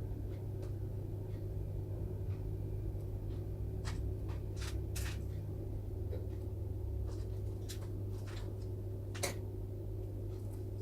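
Steady low hum from the bench equipment, with light, sharp clicks scattered through it as small tools handle fine jumper wires on a PS4 circuit board during microsoldering.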